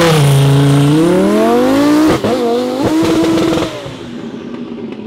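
Twin-turbo Lamborghini Huracán V10 launching hard and accelerating away. The engine note dips as it leaves, climbs steeply, breaks sharply for an upshift about two seconds in, then climbs again before fading quickly into the distance near the end.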